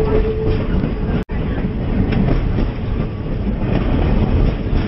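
Passenger train running on the track: a steady low rumble of wheels on rail. The sound drops out for an instant a little over a second in.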